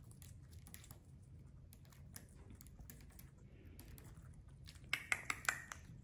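Quaker parrot biting and picking at a red bell pepper with its beak: faint, irregular small clicks and crunches, with a quick cluster of louder, sharper ones about five seconds in.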